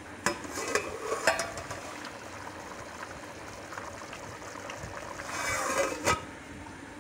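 Metal pot lid handled with a cloth, with a few sharp clinks in the first second and a half and a louder scrape ending in a clink about six seconds in, over the steady sizzle of rice cooking in the pot as its water cooks away.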